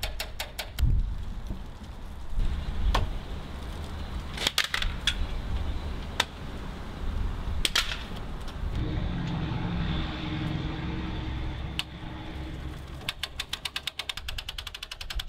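Telescoping antenna mast being lowered by hand: knocks and clanks of the metal tubes, then a rapid, even ratchet clicking from about two seconds before the end as the cable winch is cranked. Low wind rumble on the microphone underneath.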